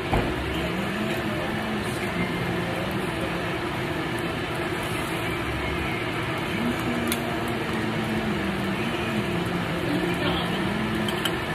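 Steady restaurant background noise, a mix of ventilation hum and faint voices, with a low melody from background music wavering up and down.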